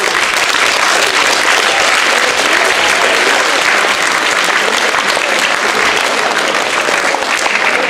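Audience applauding, a steady dense clapping that holds at the same level throughout.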